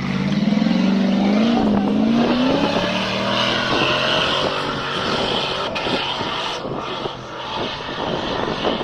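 Off-road 4x4 vehicle's engine revving, its pitch rising over the first couple of seconds, then giving way to loud rough rumbling and rattling with many sharp knocks as it drives over rough ground.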